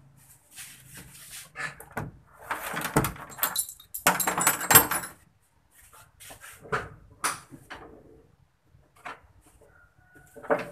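Rustling and clattering handling noise with scattered knocks, louder for a couple of seconds before the middle. Then come sharp clunks as the bonnet of a Toyota Corolla DX is unlatched and lifted open.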